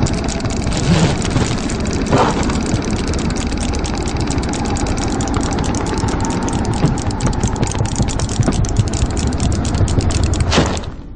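Strong wind rushing and rumbling, with fast irregular clicking throughout. It cuts off suddenly near the end.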